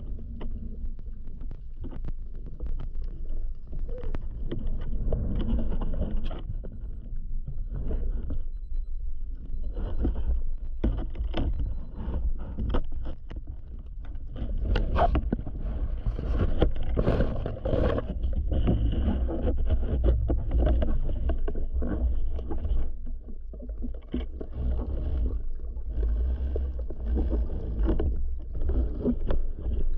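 Underwater noise picked up by a diver's action camera: a steady low rumble of water moving over the housing, with frequent irregular clicks and knocks from the speargun and gear. Bubbles rise past the camera near the end as the diver nears the surface.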